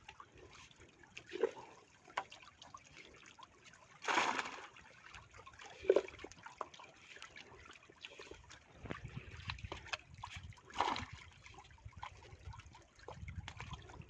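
Water trickling, with small splashes and knocks, and two louder splashes about four and eleven seconds in.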